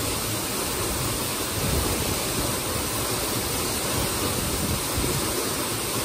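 Waterfall pouring into its plunge pool: a continuous, even rush of falling water.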